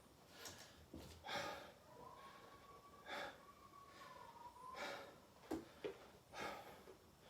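A person breathing hard and heavily between exercise reps, out of breath from burpees, with a loud breath about every one and a half to two seconds. A faint thin wavering tone sounds in the background for a few seconds mid-way.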